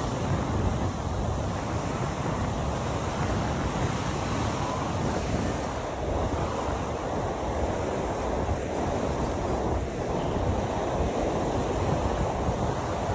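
Sea surf washing steadily onto a beach, with wind buffeting the microphone in a low, fluttering rumble.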